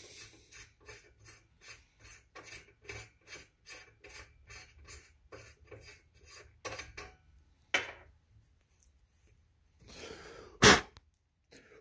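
Rhythmic scrubbing on a rifle barrel's threaded muzzle, about three strokes a second, as the threads are cleaned before a muzzle brake goes on. The scrubbing stops about seven seconds in, and a single loud knock comes near the end.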